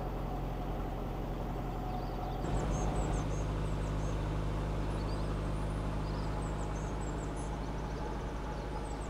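Narrowboat engine running steadily under way, a low even hum; from about two and a half seconds in, small birds sing over it.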